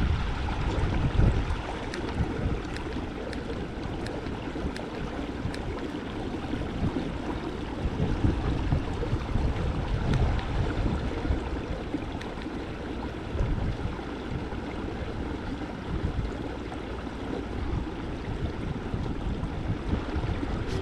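Wind rumbling in gusts on the microphone over a steady wash of water lapping against a kayak hull.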